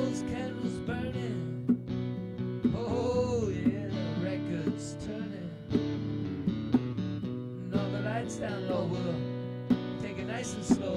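Acoustic guitar strumming, accompanied by sharp hand-drum slaps, in an instrumental break of a country-style song.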